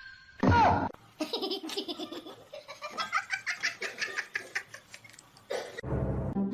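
A short, loud cry falling in pitch, then a long run of hearty laughter in rapid pulses.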